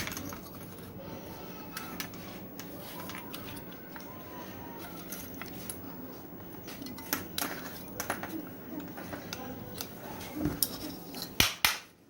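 Metal motor parts of a washing-machine spin-dryer motor clinking and tapping as they are handled and fitted together, with a quick run of sharp taps near the end, over a faint steady low hum.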